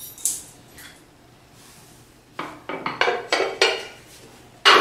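Kitchen utensils clinking against crockery: a couple of sharp clinks at the start, then a quick run of about six ringing clinks in the second half and one more near the end.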